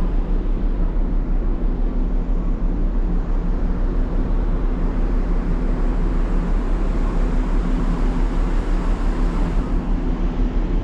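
Steady low drone of a large car ferry's engines and funnel exhaust, with a few constant hum tones running through it, heard from the open deck.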